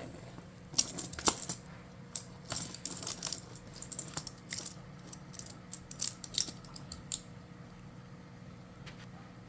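Magnetic toy blocks clicking and clacking as they are handled and snapped together, a quick irregular run of sharp clicks that dies away about seven seconds in.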